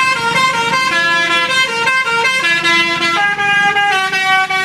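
Indonesian 'telolet' bus horn, a multi-tone horn playing a tune: several horn notes sound together and step to new notes two or three times a second.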